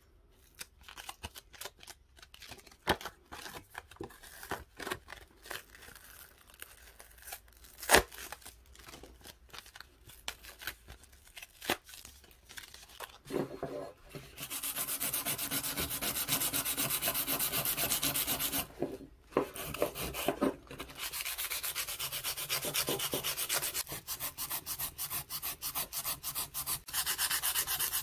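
Scattered light clicks and knocks of small parts being handled. About halfway in, steady hand sanding begins: rapid back-and-forth scraping strokes, with a brief pause about two-thirds of the way through.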